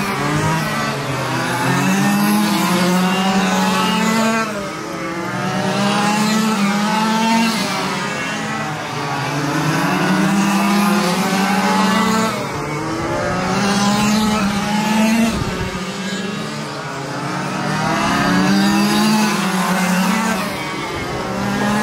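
Several quarter-scale RC race cars lapping an oval, their small engines revving up and backing off through the turns so the pitch rises and falls and the sound swells and fades about every four seconds.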